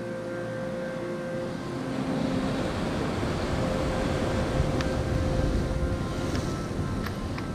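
Wind buffeting the microphone over sea surf, a steady rushing rumble that grows stronger about two seconds in. A few light clicks come in the second half as metal lures and hooks are handled.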